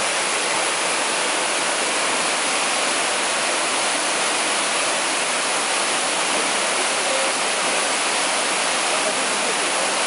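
Waterfall: white water rushing down a sloping rock slab, a steady, unbroken rush.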